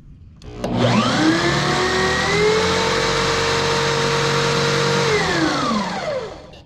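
Electric drill used as a makeshift lathe, spinning a dowel rod with a piece of deer antler on it: the motor whines up to speed about half a second in, runs steadily for a few seconds, then winds down and stops near the end.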